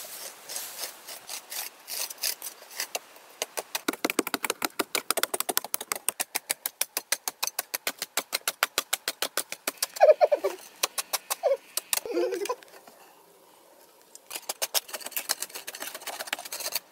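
Hand hoes and picks striking and chipping hard, dry earth in quick repeated blows, about five a second, from two diggers working at once. A few short pitched calls break in about ten seconds in and make the loudest moment, and the chipping pauses briefly before starting again near the end.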